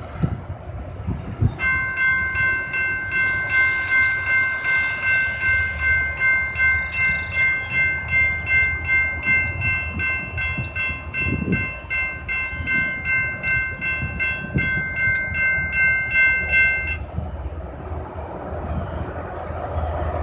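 A railroad warning bell ringing steadily about twice a second, starting a second or two in and stopping a few seconds before the end, over the low rumble of an approaching diesel freight train.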